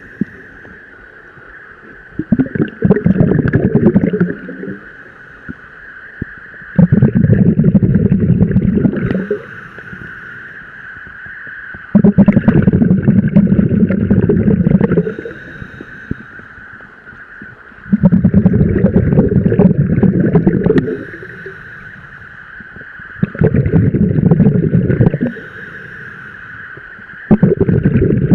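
Scuba diver breathing underwater: a bubbling rush of exhaled air from the regulator, about two seconds long, comes six times at roughly five-to-six-second intervals.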